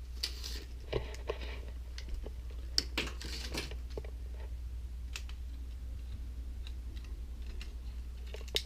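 Scattered light clicks and rustles of a tape measure and plastic model being handled, with a steady low hum under them.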